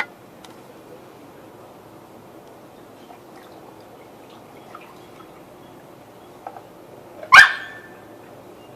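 A single short, loud animal call about seven seconds in, over a faint steady hum with a few small ticks.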